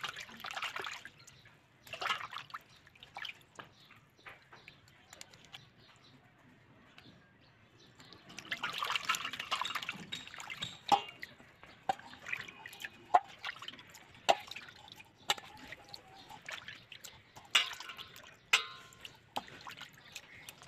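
Hands sloshing and rubbing pieces of cut carp in water in a stainless-steel bowl. A longer spell of splashing comes in the middle, with scattered drips and small sharp clicks between the splashes.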